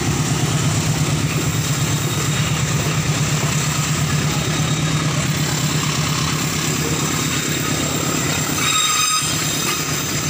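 Loaded flat wagons of a rail-carrying freight train rolling past at close range: a steady rumble and rattle of steel wheels on the track. Thin high squealing tones from the wheels come in near the end.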